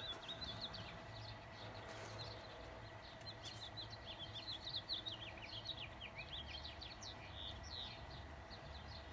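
Birds chirping faintly in the background: a rapid run of short, high chirps, over a steady low hum.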